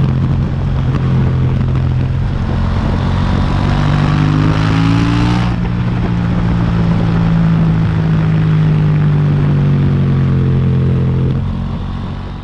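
KTM 790 Duke's stock-exhaust parallel-twin engine running at steady revs. The revs climb a little about four to five seconds in, hold, then drop and fade near the end.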